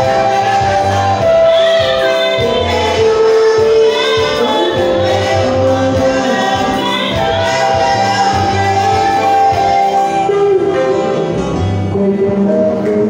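Live gospel music: a group singing together over held electric keyboard chords, with a repeating bass line.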